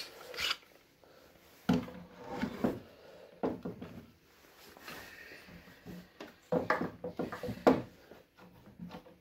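One-handed plastic bar clamps being handled and squeezed tight onto a wooden chair frame to hold a freshly glued, dowelled joint: several clusters of clicks and knocks, the busiest about two seconds in and again about seven seconds in.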